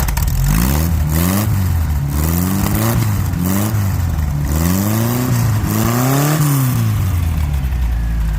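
Dune buggy engine revved up and down about six times in quick blips, the pitch rising and falling with each, settling back to idle near the end.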